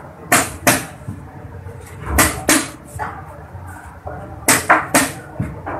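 Plastic chess pieces knocked down on the board and the buttons of a digital chess clock slapped, in quick sharp click pairs about every two seconds, as moves are traded at speed.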